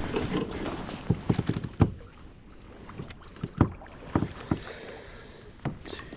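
Irregular knocks and bumps on a kayak while a just-landed bass is handled: a quick cluster of them a second or so in, then single knocks every second or so.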